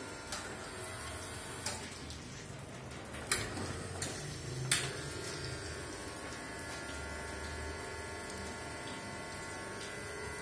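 Three-group espresso machine running water through its group heads: a steady splashing of water into the drip tray over a low machine hum, with a few sharp clicks in the first five seconds.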